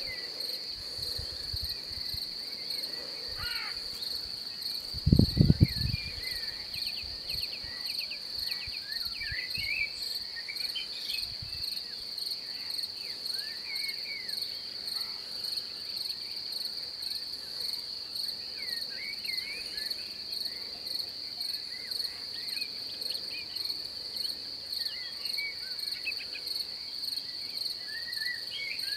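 Steady high-pitched insect chorus running throughout, with scattered short chirps. About five seconds in, a brief low rumble, the loudest sound in the stretch.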